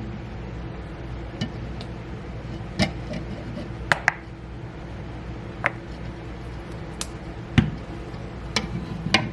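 A spoon tapping and clinking on glass now and then, about half a dozen light taps scattered over a steady low hum, while honey is spooned into a glass.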